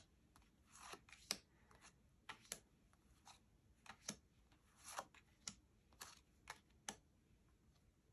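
Tarot cards being handled and laid down one after another: faint, short snaps and slides of card stock, about one or two a second, stopping near the end.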